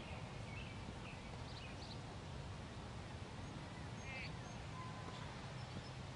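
Steady outdoor background rumble with faint bird chirps, a few short ones about a second and a half in and a brief cluster about four seconds in.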